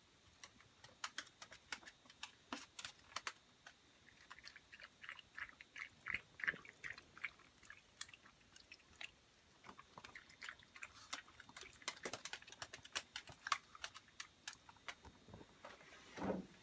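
Chihuahua chewing dry food: quick, irregular crunchy clicks, denser for a few seconds in the middle, with a brief low, louder sound near the end.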